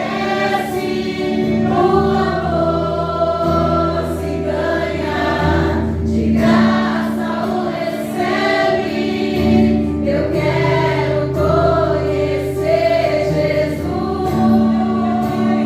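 A church worship group sings a gospel song in harmony over a steady low instrumental accompaniment.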